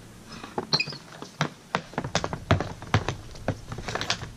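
Hockey stick blades and pucks clacking on a plastic shooting pad: a quick, uneven run of sharp taps and knocks.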